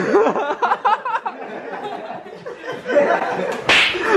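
Several people laughing and shouting excitedly, with a short, sharp noisy burst near the end.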